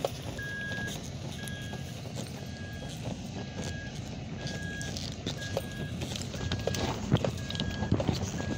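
Toyota 4Runner's in-cabin warning chime beeping over and over, a short high beep about three times every two seconds, over the low rumble of the truck driving, with a few knocks and rattles inside the cabin.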